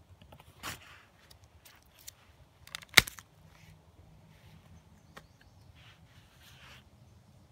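Knife work on dry aspen wood: a few soft scrapes and shaving sounds of the blade, a light knock near the start, and one sharp crack of wood about three seconds in, the loudest sound.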